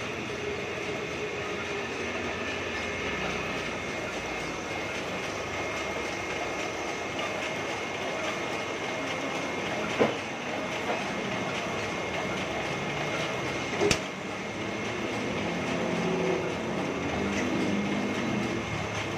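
Heidelberg GTO 52 sheet-fed offset printing press running steadily, a constant mechanical clatter with a thin steady whine, printing brand marks on rice-wrapping paper. Two sharp clicks stand out, about ten and fourteen seconds in.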